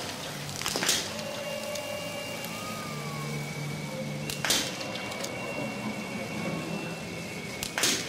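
Small-bore .22 biathlon rifle firing in the prone position: three sharp cracks, each about three and a half seconds apart, over steady background noise.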